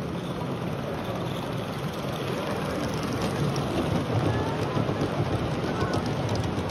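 Crowd of people talking indistinctly: a steady hubbub of many voices.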